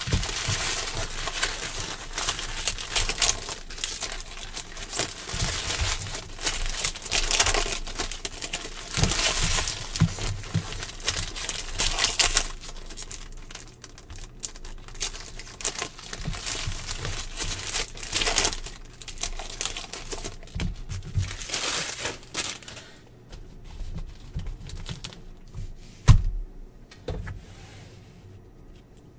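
Foil trading-card packs (NBA Hoops) being torn open and crinkled by hand, with cards slid and handled. The crinkling is dense for about the first twelve seconds, then turns to sparser, quieter handling, with a single sharp thump a few seconds before the end.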